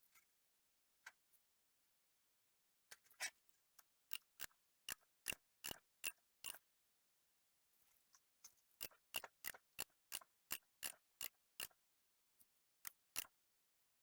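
Two runs of sharp clicks, about three a second, with a pause of about two seconds between them, from steel hydraulic tubing being worked in a hand tube bender.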